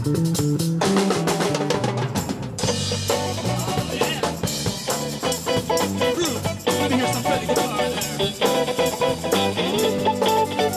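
Live band playing an instrumental funk groove: electric bass line with drum kit and percussion, electric guitar joining in, no vocals.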